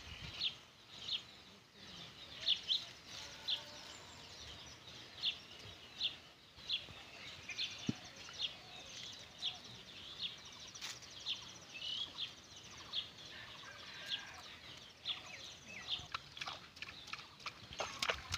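A small bird chirping over and over: short, high chirps repeating irregularly about once or twice a second.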